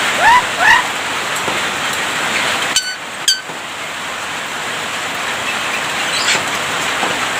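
Javan myna calling: two quick rising whistles near the start, two sharp clicking notes about three seconds in, and a faint high chirp around six seconds, over a steady hiss.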